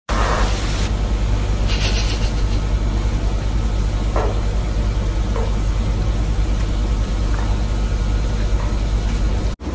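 A loud, steady low mechanical hum, with a short hissy noise about two seconds in.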